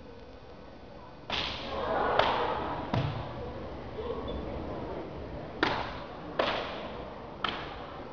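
Karate strikes in a martial-arts demonstration: six sharp slaps in two groups of three, the first group about a second apart in the opening seconds and the second group near the end.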